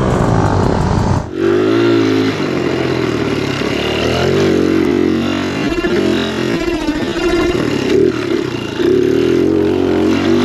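Motorcycle engine revved hard, its pitch repeatedly climbing and dropping back as the rider accelerates and shifts. About a second in the sound cuts abruptly to another bike, a dirt bike, revving up and down in the same way.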